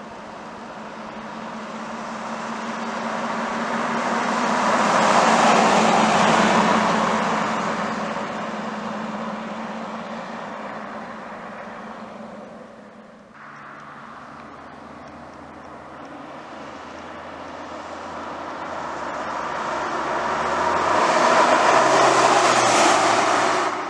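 Two vehicle drive-bys on an open highway. Tyre and engine noise swells as each approaches and fades as it goes, cut off abruptly in the middle. The second and closest pass, about 22 s in, is a black 1985 Toyota pickup with its 22R four-cylinder engine.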